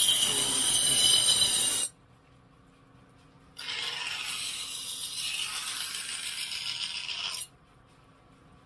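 Knife blade being ground against a sharpening stone: a steady grinding hiss that stops about two seconds in, then after a short pause a second grind of about four seconds. A faint steady hum lies under the gaps.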